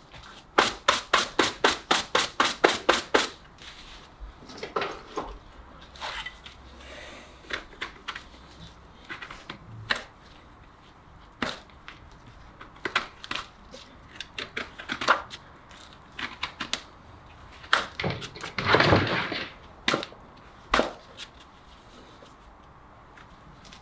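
Farrier's tools working on a horse's hoof: a quick run of sharp taps, about six a second, for a few seconds, then scattered clicks and short scrapes, with a longer scrape near the end.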